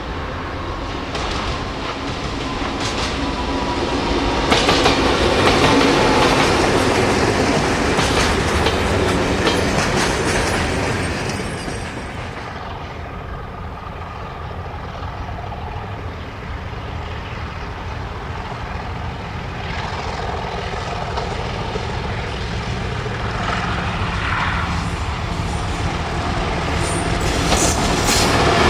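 Freight train rolling past, its wheels clicking over the rail joints over a steady rumble. It is loudest in the first half, eases off, then builds again near the end.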